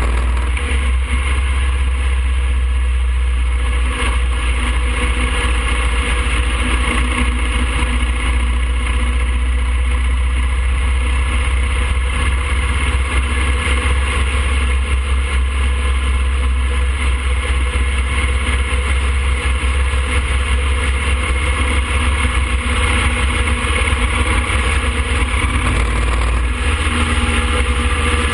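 2007 Harley-Davidson Fat Boy's air-cooled Twin Cam 96 V-twin running steadily at cruising speed, heard from a camera on the moving bike with wind and road noise over it.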